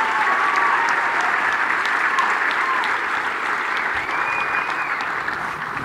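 Audience applauding in a large hall, the applause beginning to die down near the end.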